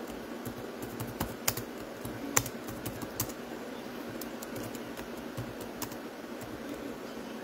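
Typing on a keyboard: irregular clicks and taps, most of them in the first three seconds, over a steady low hiss.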